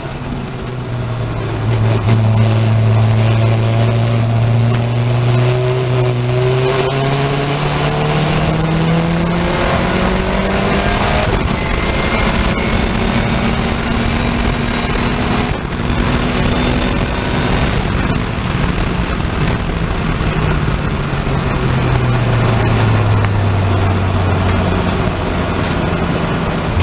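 Saloon race car heard from inside the cockpit, its engine at full throttle pulling up through the gears with rising pitch and brief breaks at two gear changes. A high whine runs along with it while the car is at speed. Near the end the engine drops in pitch as the driver lifts off and brakes for a corner.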